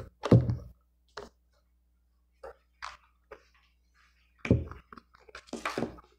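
Irregular plastic clicks, taps and crackles from hands handling a smartphone and a small yellow plastic phone holder, with sharper knocks about half a second in, about four and a half seconds in, and a cluster of them near the end.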